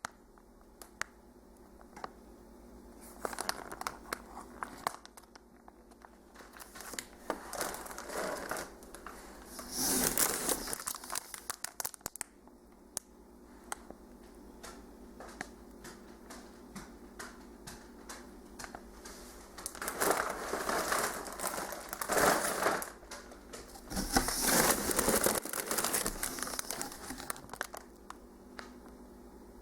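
Packaging crinkling and rustling in irregular bursts as plush toys are unwrapped, loudest about ten seconds in and again from about twenty to twenty-six seconds in.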